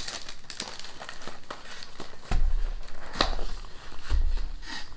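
Cardboard After Eight mint box being pried open and handled: scattered rustling and clicking of the card flaps, with a dull thump a little after two seconds in and another about four seconds in.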